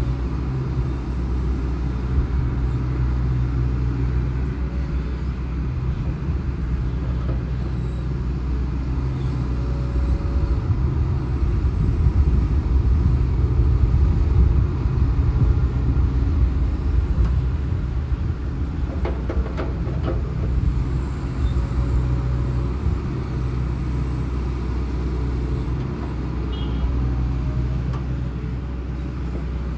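Hitachi Zaxis hydraulic excavator's diesel engine running steadily, swelling louder for several seconds near the middle. A short cluster of knocks comes about two-thirds of the way through.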